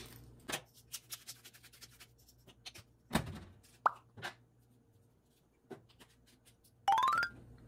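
A pepper shaker clicking and rattling as black pepper is shaken over raw chicken pieces, then a knock as a container is set down. Short pops follow about four seconds in, and a brief rising whistle-like tone near the end.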